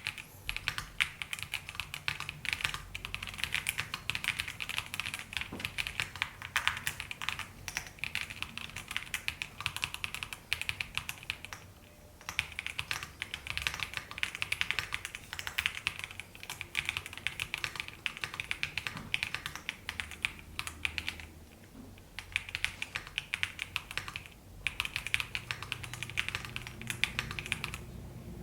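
Typing on an EPOMAKER CIDOO V65 V2 wireless mechanical keyboard: fast, continuous key clicks in long runs, broken by a few brief pauses.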